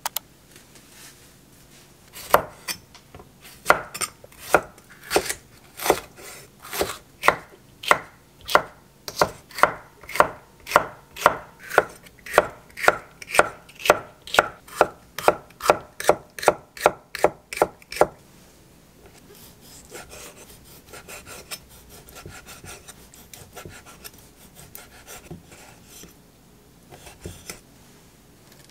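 Kitchen knife slicing crisp mini bell peppers on an end-grain wooden cutting board. Sharp, even strokes come about two to three a second, each with a short ring. About two-thirds of the way through they give way to softer, quicker cuts.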